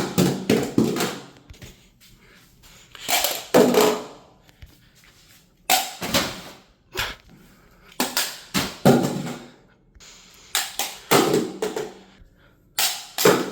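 Plastic plug-in power outlet tumbling down a staircase, clattering and knocking against the steps in a run of separate impacts every second or two.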